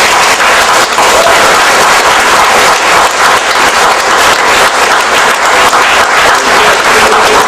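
Audience of a few dozen people applauding, dense and steady clapping.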